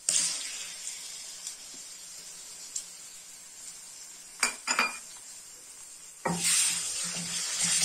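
Chopped onions sizzling in hot oil as garlic, ginger and green chilli paste is dropped in. Two sharp clinks about four and a half seconds in, then a wooden spoon stirring and scraping through the onions from about six seconds, the sizzling louder.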